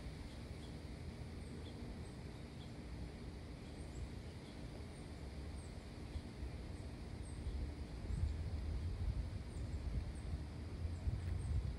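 Outdoor ambience: a low rumble that grows louder about eight seconds in, with many faint, short, high chirps scattered throughout.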